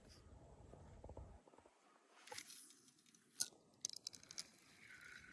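Near silence, with a few faint clicks and taps about three to four seconds in.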